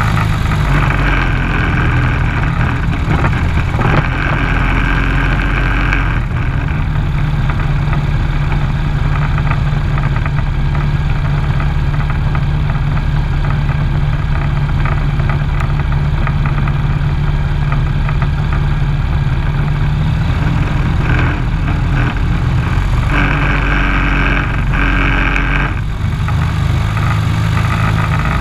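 Ride-on lawn mower engine running steadily under way: a constant low hum, with a higher whine that comes and goes several times.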